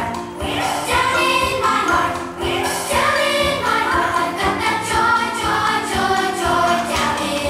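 A song: a group of voices singing together over instrumental backing with a steady beat.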